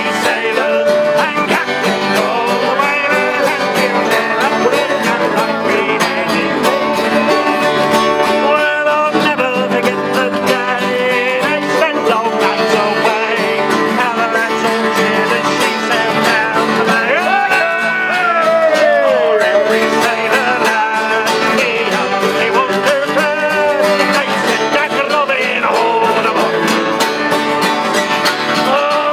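A group of men singing a sea shanty together, backed by strummed acoustic guitars, a mandolin and a button accordion.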